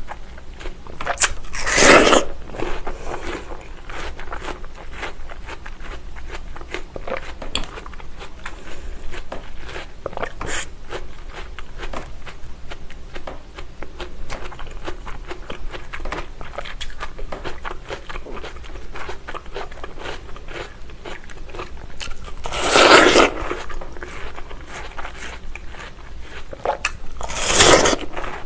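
Biting into and chewing crisp, juicy watermelon close to the microphone. There are three loud crunching bites, one about two seconds in and two close together near the end, with steady wet chewing and small mouth clicks between them.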